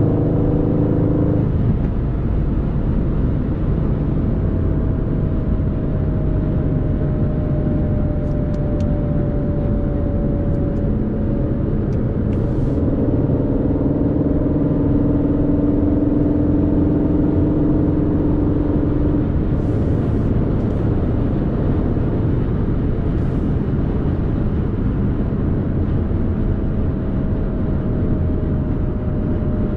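Aston Martin Vantage's 4.0-litre twin-turbo V8 pulling at steady, moderate revs while driving, over a constant rumble of road and tyre noise. The engine note drifts only slowly up and down, with no hard acceleration.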